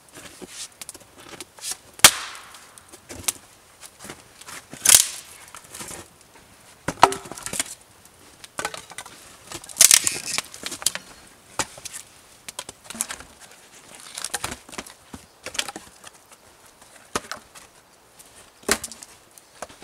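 Firewood being split with an axe on a stump chopping block: sharp chopping blows a few seconds apart, the loudest about two seconds in and near the middle, with split pieces knocking and clattering as they fall and are tossed onto the pile.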